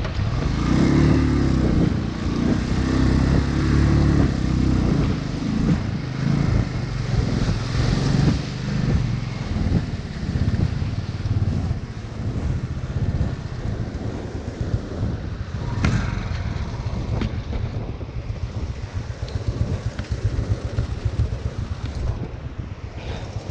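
Motorcycle engine revving, its pitch rising and falling over the first few seconds, over the steady rush of a fast glacial meltwater stream across the road. A single sharp knock comes about two-thirds of the way through.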